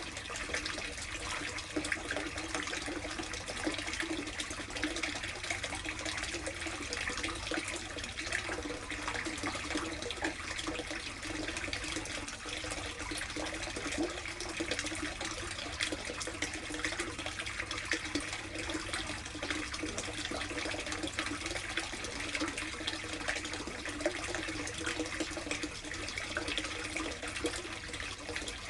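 Water running and splashing steadily into a plastic koi tub.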